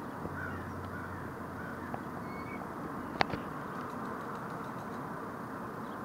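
Faint bird calls, a few short ones in the first half, over steady outdoor background noise, with one sharp click about three seconds in.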